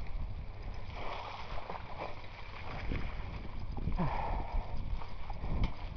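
Mountain bike ridden over rough ground: wind rumbling on the microphone, with scattered short rattles and knocks from the bike.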